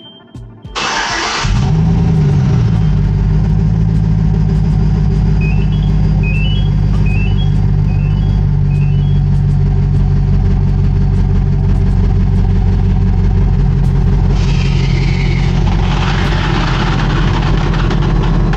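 GMC Sierra pickup's engine remote-started: it cranks briefly about a second in, catches with a short rev flare, then settles into a steady idle. From about three-quarters of the way through, a rush of air joins the idle as the bagged air suspension fills and lifts the truck.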